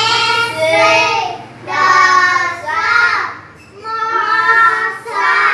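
Young children singing in high voices, a string of short sung phrases with brief breaks between them.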